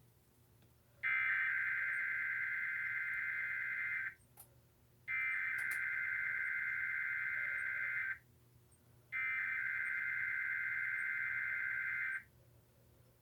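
Emergency Alert System SAME header: three identical bursts of harsh digital data tones, each about three seconds long with about a second's pause between them. This is the coded header that opens an EAS test and tells receivers the event type and the areas it covers.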